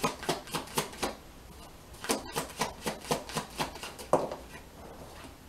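Deck of oracle cards being shuffled by hand: a run of quick card slaps, about four a second, that pauses for about a second and then resumes, with a single louder knock about four seconds in.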